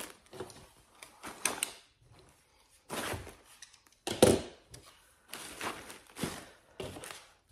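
Cardboard boxes being shifted and set down by hand: a series of knocks, thuds and rustles, the loudest a heavy thump about four seconds in.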